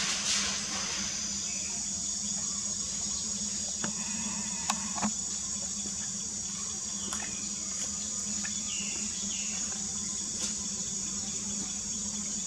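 A steady, high-pitched insect drone over a low steady hum, with a few short clicks about four to five seconds in.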